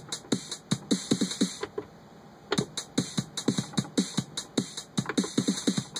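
Electronic drum-machine pattern triggered over MIDI by a step sequencer: fast, even low drum hits that each fall in pitch, with hi-hats ticking over them. About two seconds in the pattern cuts out, then starts again roughly a second later. The stop comes from the sequencer being left in song mode, which halts playback.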